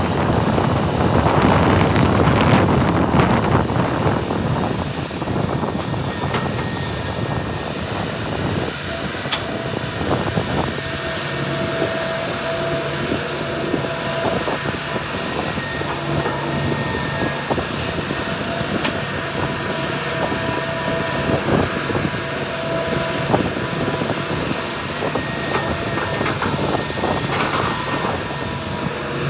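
Heavy earthmoving machinery working: large diesel engines running with metallic rattling, loudest in the first few seconds. A steady whine comes and goes during the middle and again near the end.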